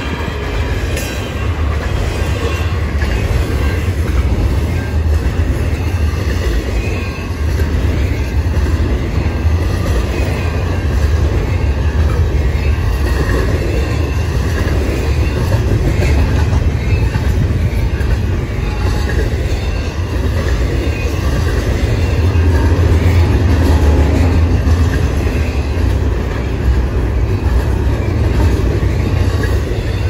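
Train cars rolling past: a loud, steady rumble with wheels clattering over the rails and a faint wheel squeal.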